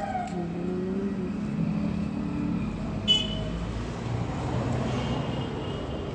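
Outdoor street background noise with road traffic, and a brief, sharp, high-pitched toot about three seconds in.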